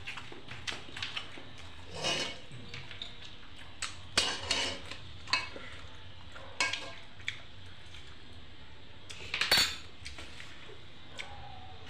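Bare hand mixing rice and chicken feet adobo in a metal bowl, with scattered clinks and scrapes against the bowl; the loudest scrape comes about nine and a half seconds in.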